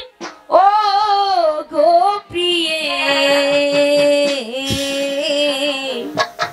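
A woman singing a Bengali jatra song into a microphone: a short phrase of wavering notes, then one long held lower note from about two seconds in until near the end.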